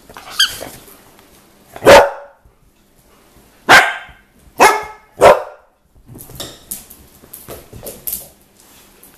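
Poodle barking four times, loud and sharp, at a rubber lion squeaky toy held up in front of it, after a short high squeak from the toy. Softer scuffling and clicking follow as the dogs play over the toy on a tiled floor.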